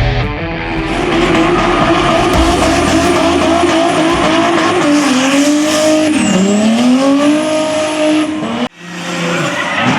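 Turbocharged Mazda 121 doing a burnout: engine held at high revs over squealing, spinning tyres. The revs sag about six seconds in and climb back. The sound drops out abruptly near the end and resumes.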